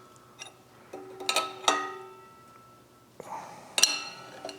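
Metal hand tools clinking against metal engine parts: a few sharp clinks, each ringing briefly, in two clusters about a second in and near the end.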